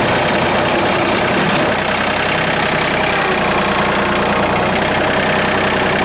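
A small tractor's engine running steadily as it drives slowly, heard from the operator's seat.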